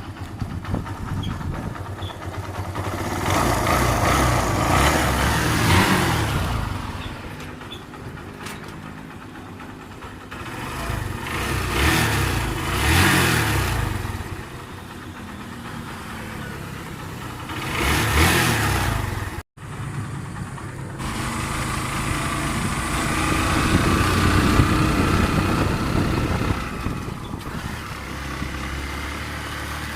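Kawasaki Barako II motorcycle's single-cylinder engine revved up and let back down three times, then, after a brief break, held at a steady raised speed. The exhaust runs through a catalytic converter drilled open for freer flow.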